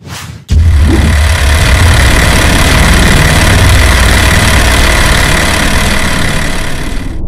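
Loud, steady engine-like rumble with a heavy low end and hiss on top, starting abruptly about half a second in and running on unbroken.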